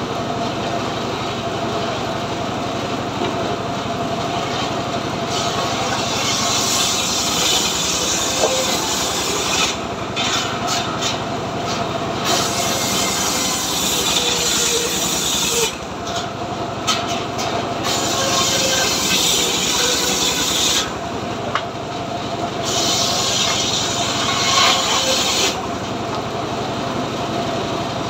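Homemade engine-driven circular saw (gergaji srekel) ripping a teak log: the engine and blade run steadily throughout, and four louder passes of three to four seconds each are the blade cutting along the log. Short knocks come between the passes.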